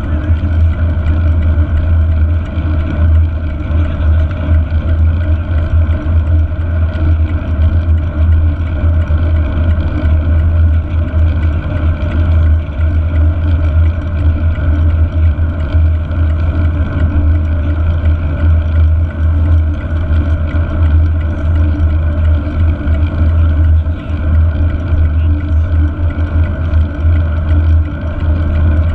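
Steady, loud rumble of wind buffeting and tyre noise picked up by a GoPro mounted on a mountain bike's handlebar while riding on asphalt.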